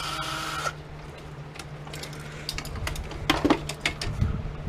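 Power drill spinning a screw out, stopping abruptly under a second in, followed by scattered light clicks and metal clinks of small parts being handled, busiest near the three-quarter mark.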